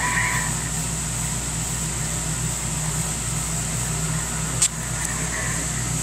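CB radio base station receiver hissing with static and a steady low hum on an open channel between transmissions, the S-meter needle near zero. One sharp click comes about four and a half seconds in.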